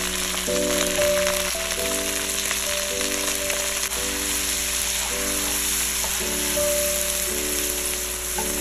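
Pre-cooked mutton pieces and fried onions sizzling in hot oil in a wok as they are stirred with a spatula. Background music with held chords that change about once a second plays under the sizzle.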